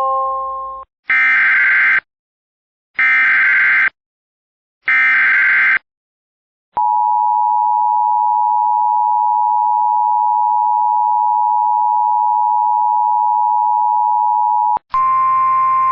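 NOAA Weather Radio Emergency Alert System activation. Three one-second bursts of buzzing SAME header data, evenly spaced, are followed by the steady 1050 Hz warning alarm tone, which holds for about eight seconds and cuts off abruptly near the end. It is the tone-alert for a flash flood warning.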